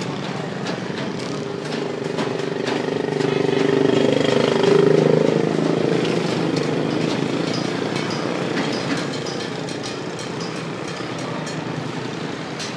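An engine running steadily, swelling to its loudest about four to five seconds in and then easing off.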